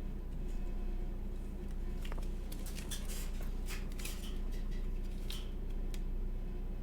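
A few light clicks and scrapes of small objects being handled on a desk, bunched in the middle, over a steady electrical hum.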